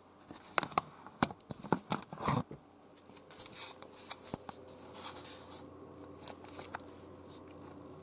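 Close handling noise: a quick run of sharp clicks, rustles and scrapes in the first two and a half seconds, then sparser, softer clicks over a faint steady hum.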